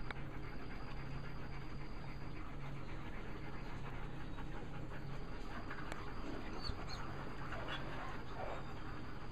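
German Shepherd dog panting steadily, with a few faint high squeaks near the end.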